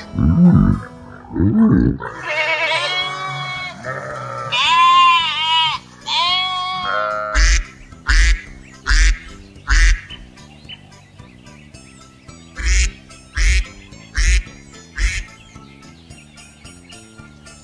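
Domestic geese honking in a run of high, rising-and-falling calls, after a few pig grunts at the very start, all over background music. The second half holds a string of short, sharp knocks with deep thumps, roughly one every half second or so.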